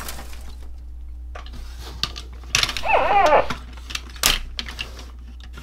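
Clicks and clacks of hard plastic transforming-robot toys being handled and posed. About three seconds in comes a short, loud run of quick, high, yelping calls.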